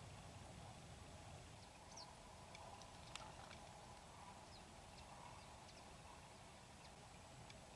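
Near silence: a faint low rumble of open-air ambience with scattered faint, short high chirps and ticks.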